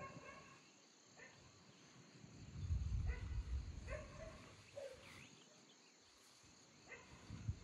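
Steady high-pitched chorus of crickets and other insects, with a few brief distant pitched calls and a low rumble about three seconds in.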